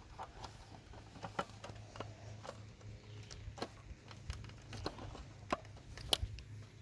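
Faint, scattered clicks and small taps of a plastic smoke alarm being handled, over a faint low hum; no alarm sounds.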